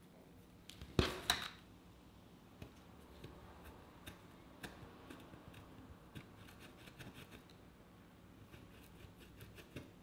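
Two sharp clicks of small metal tools about a second in, then a run of light ticks and scratches as a thin needle file picks at the griptape of a fingerboard deck.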